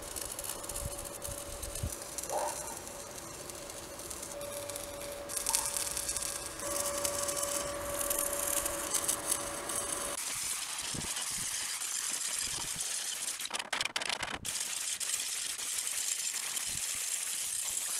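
Electric arc welding on a steel profile-pipe gate frame: a continuous crackling, sputtering hiss, with a steady tone under it for the first ten seconds that stops about ten seconds in.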